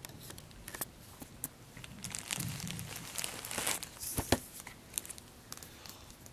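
Crinkling and rustling of an iPad 2's box and wrapping being handled, densest from about two to four seconds in, with scattered light clicks and one sharp click a little after four seconds.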